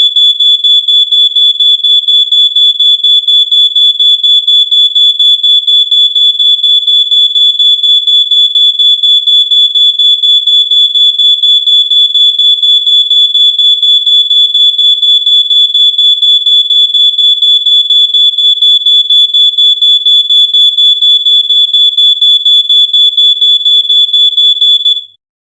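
Smoke alarm sounding: a loud, high-pitched electronic tone pulsing rapidly and evenly, cutting off suddenly near the end.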